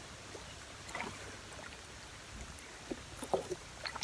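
Faint water sounds of wading in a shallow, muddy stream: soft sloshing with a few small splashes, most of them near the end.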